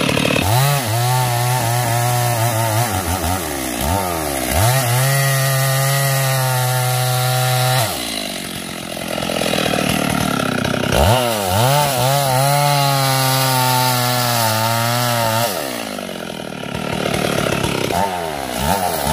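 Stihl MS 382 two-stroke chainsaw revved to full throttle and held there through two long cuts into wood. It drops back to idle about eight seconds in and again about fifteen seconds in, then revs once more near the end.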